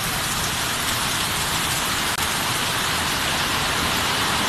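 Heavy storm rain pouring steadily, an even, unbroken hiss.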